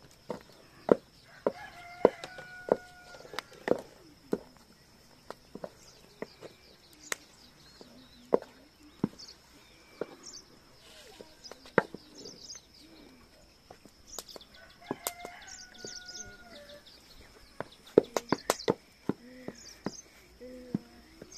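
Chickens: a rooster crows twice, about two seconds in and again about fifteen seconds in, and hens cluck. Repeated sharp knocks, the loudest sounds, come throughout.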